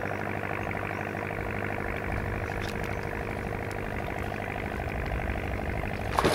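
A boat motor idling with a steady drone, and a sudden louder burst of sound right at the end.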